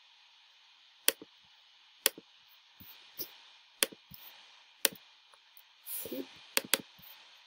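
Sharp computer clicks, about one a second and some doubled, as a pointer picks a spelling suggestion and closes a comment box, over a steady faint hiss. A short soft rustle comes near the end.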